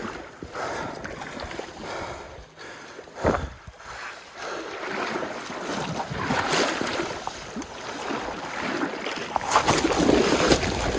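Stream water splashing and sloshing, with wind noise on the microphone. A single sharp knock a little over three seconds in, and the splashing grows busier toward the end.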